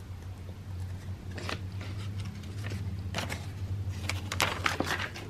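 Paper calendar pages rustling and flapping as the calendar's cover is lifted and flipped open, a few short crinkles with a brief cluster about four seconds in, over a low steady hum.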